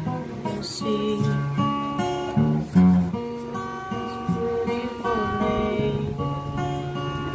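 Black cutaway acoustic guitar strummed and picked, with the chords changing every half second or so.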